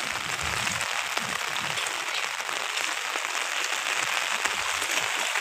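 Steady monsoon rain falling: an even hiss of many drops landing on a water-covered flat roof and the trees around it.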